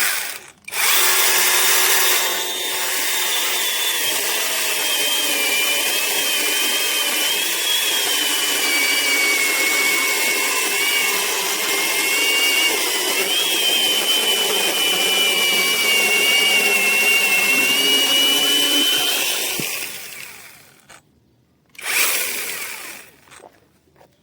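Brushless battery mini chainsaw running for about twenty seconds with a high motor whine that wavers in pitch, then a second short burst near the end.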